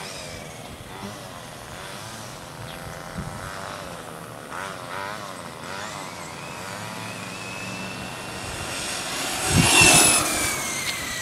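Radio-controlled short-course truck's motor whining as it drives on asphalt. The whine rises in pitch and grows louder as the truck comes close about ten seconds in, then drops in pitch as it pulls away.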